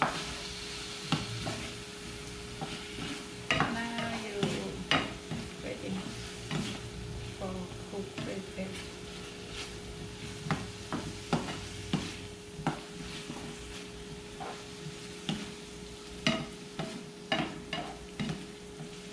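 Pork and red pepper stir-frying in a skillet: a steady sizzle with irregular clacks and scrapes as a plastic slotted spatula tosses the food against the pan.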